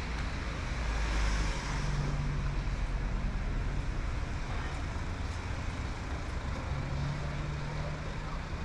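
Road traffic going by: a motor vehicle passes close, loudest about a second in, over a steady low engine hum.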